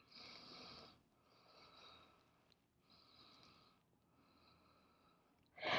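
Faint breathing: four soft breaths of about a second each, evenly spaced, taken while holding a stretch.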